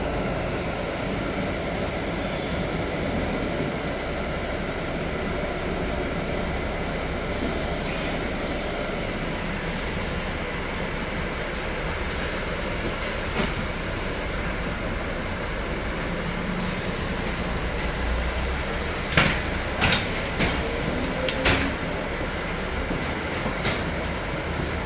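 Steady ride noise inside a moving city bus, with a high hiss that comes and goes and a few sharp knocks and rattles a little past two-thirds of the way through.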